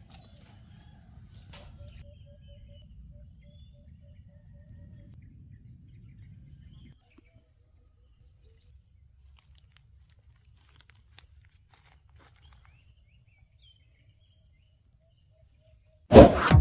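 Crickets chirping in a steady, fast-pulsing high trill over a low rumble. Loud music cuts in just before the end.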